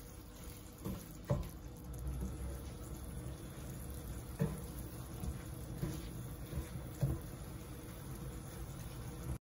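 Wooden spatula stirring freshly added rice through the seafood and juices in a paella pan as it fries briefly: a wet sizzle with a few soft knocks of the spatula against the pan. The sound cuts off suddenly near the end.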